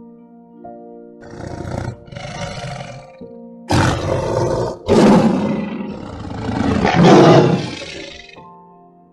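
Tiger roaring in a run of rough calls: two shorter ones starting about a second in, then three longer, louder ones, the loudest near the end. Background music with sustained notes plays under them and comes back as they fade.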